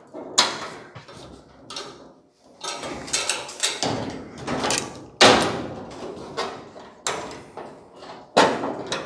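Sheet metal roof panel being slid and pushed into position on the body: metal scraping and rubbing on metal, with several sharp clanks, the loudest about five seconds in and near the end.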